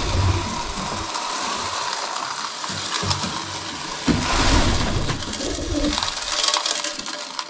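Mixed grain poured from a plastic container into a long feeder trough, a continuous pouring hiss that swells about four seconds in, with pigeons cooing.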